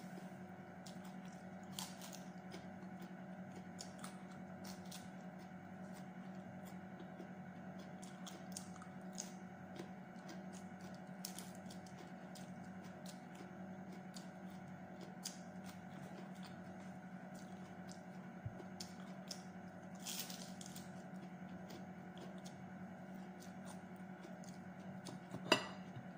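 Quiet chewing of raw lettuce leaves, with scattered small crunches and mouth clicks over a steady low hum, and one sharper click near the end.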